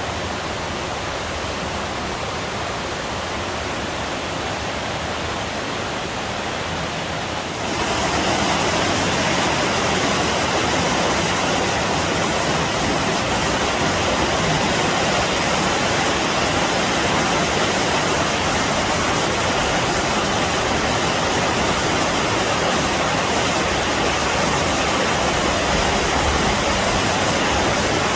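Waterfall: a steady rush of falling water. It gets louder and brighter about eight seconds in, then holds steady.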